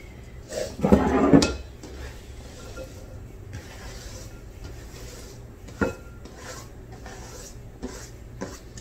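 Knife scraping diced bell peppers across a plastic cutting board into a glass bowl, with a loud scrape about a second in and a few sharp knocks later.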